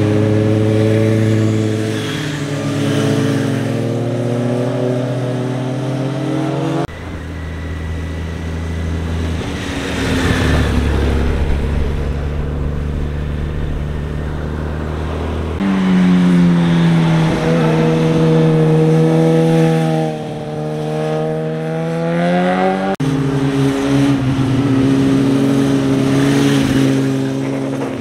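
Motorcycle engines leaning one after another through a hairpin bend, each engine note rising and falling as the rider works the throttle through the turn. The sound changes abruptly three times as one bike gives way to the next.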